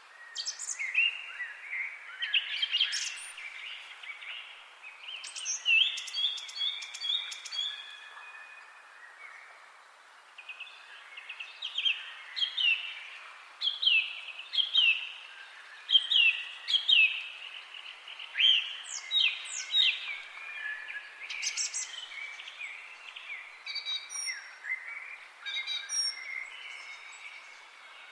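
Songbirds chirping and calling, a run of short, quick down-slurred notes repeated many times, with a brief lull in the calls partway through, over a faint steady background hiss.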